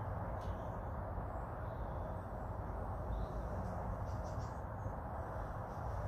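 Outdoor background: a steady low rumble, with a few faint, short bird calls, a quick cluster of them about four seconds in.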